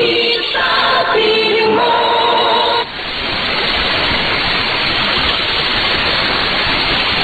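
A Tagalog song on a shortwave AM broadcast from Radio Pilipinas on 9925 kHz, heard through static. The song cuts off abruptly about three seconds in, leaving only steady shortwave static and hiss as the programme audio stops at the station's scheduled 1930 UTC close.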